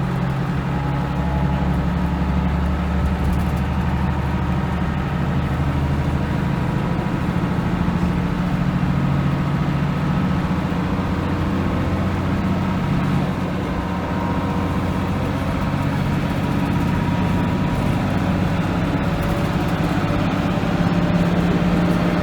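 Leyland National Mk2 bus's diesel engine running under way, a loud, steady drone whose pitch shifts up and down a few times.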